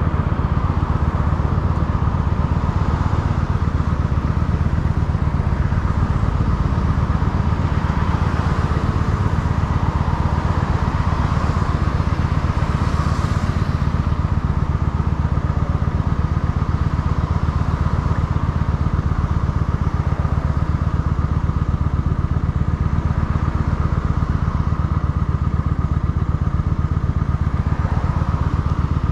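Kawasaki Vulcan 900 Custom's 903 cc V-twin idling steadily with the bike at a standstill. Traffic crossing in front rises and fades about a third of the way in.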